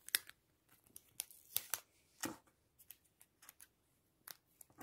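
Clear plastic card sleeve crinkling and clicking as a photocard is handled in the fingers: faint, scattered sharp ticks and rustles at irregular moments.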